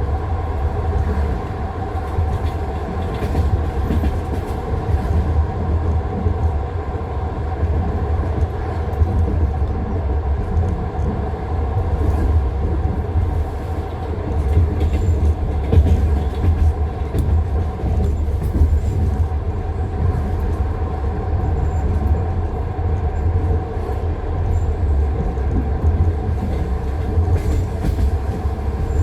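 Passenger train wheels clacking over the rail joints of jointed track, heard from inside a moving carriage over a steady low rumble.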